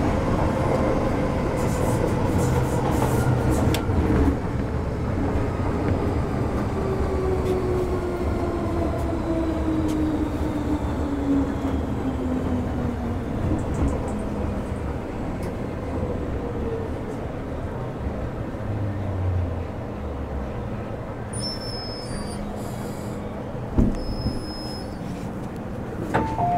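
Metro-Cammell EMU motor car heard from inside while running: steady rumble of wheels and running gear, with traction motor whine falling in pitch as the train slows. A sharp click comes near the end.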